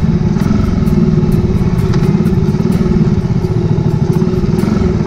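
Motorcycle engine running under way, heard from the bike itself. It gives a steady, loud, low pulsing exhaust beat.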